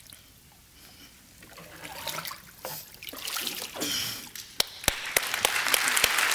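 Water splashing and sloshing in a baptistry as a boy is dipped under and lifted back out, followed by hand claps and applause building near the end.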